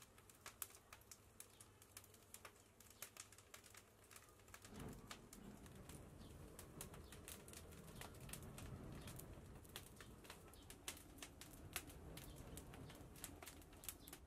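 Quiet wood fire crackling in a tandir bread oven, with frequent irregular sharp pops. About five seconds in, a low steady rumble of the flames sets in as the fire takes hold.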